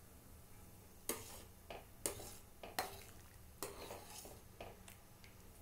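A steel spoon stirring in a metal pan of heated water, scraping against the pan in a series of short, faint strokes starting about a second in, as orange food colour is mixed in.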